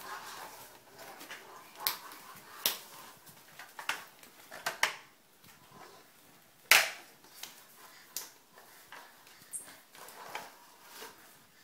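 Scattered knocks and taps of a small plastic toy truck being handled, set down and pushed across a floor by a baby, with the baby's small vocal sounds in between. One sharp knock a little past the middle is the loudest.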